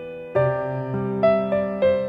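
Background music on a piano-like keyboard: slow notes struck one after another, each left to ring and fade.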